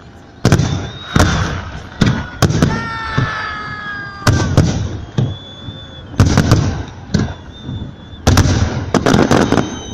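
Fireworks salute going off: a quick, irregular series of sharp booms, about a dozen in ten seconds, with crackling between them. A falling tone runs for about a second from about three seconds in.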